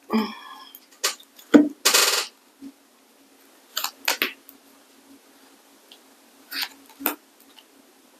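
Small tarot cards being handled and laid down: a scatter of separate soft clicks and taps with a brief rustle about two seconds in. A short squeak right at the start comes from a squeaky chair.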